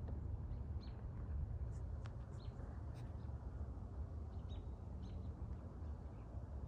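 Small birds chirping faintly, short scattered calls, over a low steady outdoor rumble.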